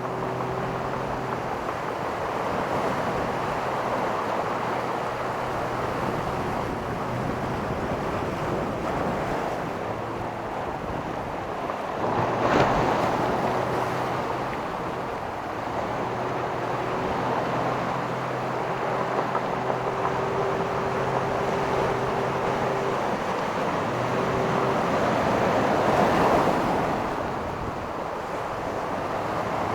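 Ocean surf washing on the shore, with a wave breaking about twelve seconds in and another near the end. Wind hisses on the microphone, and a faint steady hum comes and goes underneath.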